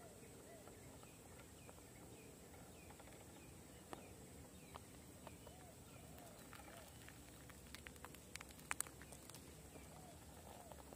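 Near silence: faint outdoor ambience with soft, repeated chirps that rise and fall, and a few light ticks, most of them about eight to nine seconds in.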